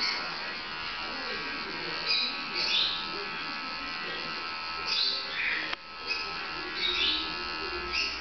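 Electric pet grooming clippers running with a steady buzz as they cut through a dog's curly coat. High chirps sound over it every second or two.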